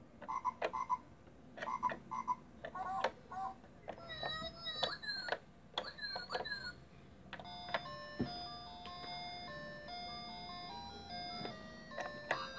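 Battery-powered plastic musical carousel baby toy playing its electronic sounds as its buttons are pressed: short repeated electronic sound effects, some gliding, then a tinny electronic tune starting about seven seconds in, with a couple of button clicks.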